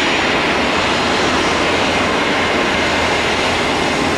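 Boeing 737 freighter's twin turbofan engines running at taxi power close by: a steady, loud jet hiss.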